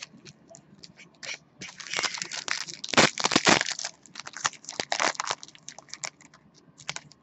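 Foil wrapper of a jumbo baseball card pack crinkling and tearing as it is opened, a dense run of crackles that is loudest about three seconds in.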